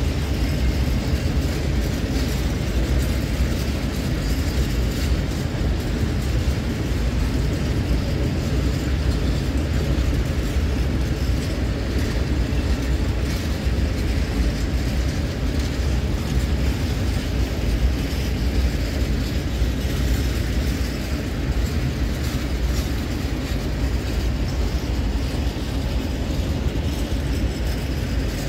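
Long freight train of open-top gondola wagons rolling past: a steady rumble of wheels on rail with the rattle of the wagons.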